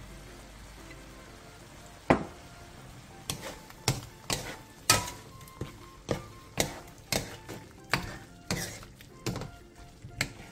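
Two wooden spatulas knocking and scraping against a nonstick wok as stir-fried kimchi is tossed, sharp taps about twice a second starting a few seconds in, over a faint sizzle of the food frying.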